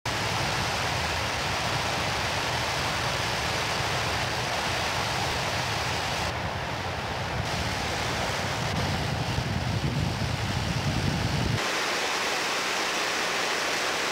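Steady rushing noise of an aircraft in flight, heard from inside, with a deep rumble that drops away suddenly about three-quarters of the way through.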